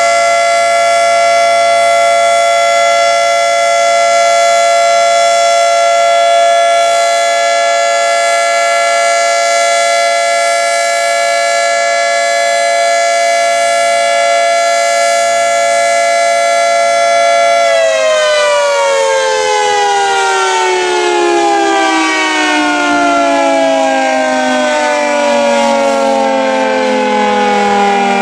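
Federal Signal 3T22 three-tone outdoor warning siren sounding a steady chord for a test of its alert signal. About 18 seconds in it shuts off and winds down, its chord falling steadily in pitch.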